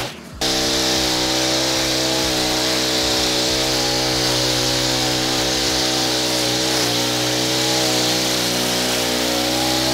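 Honda four-stroke string trimmer running at a steady high speed, its line cutting grass along a lawn edge with a hiss over the engine note; the sound drops out briefly right at the start.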